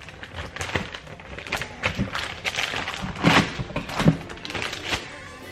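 Frozen food packages and plastic freezer bags being handled, giving crinkling and a run of knocks and taps; the two loudest knocks come about three and four seconds in.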